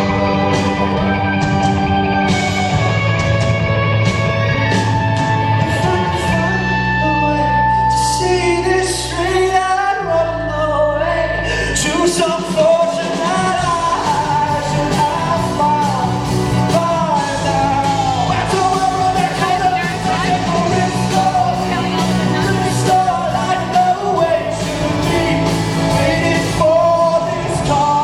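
Live rock band playing with a lead singer, heard in a large hall: sung melody over guitar, bass and drums, with the bass line changing partway through.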